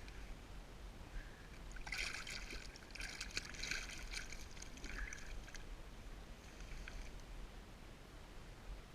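Water splashing and sloshing, busier with small clicks for a few seconds in the middle, over a faint low rumble.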